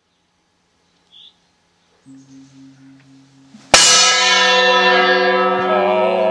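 Meditation-style music: a low steady drone begins about two seconds in, then a bell is struck once, a little past the middle, and rings on with many overtones, slowly fading.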